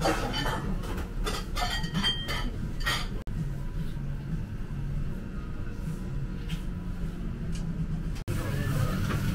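Busy eatery ambience: a steady low hum with indistinct voices and a few clinks and clatters in the first three seconds, then quieter. The sound drops out briefly twice.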